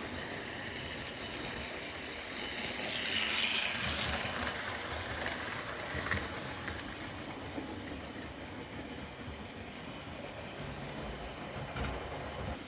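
OO gauge model trains running on a layout: a steady whirr and rattle of motors and wheels on the track, louder for a moment about three seconds in.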